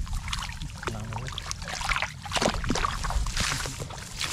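Hands sloshing and splashing through shallow muddy water while groping for fish, in short irregular splashes.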